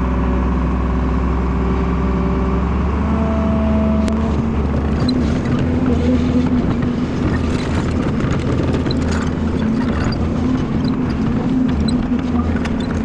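Excavator's diesel engine running steadily, speeding up about three seconds in as the hydraulics take load, heard from the operator's cab. From about five seconds in, the bucket teeth scrape and clatter through dry soil as it digs.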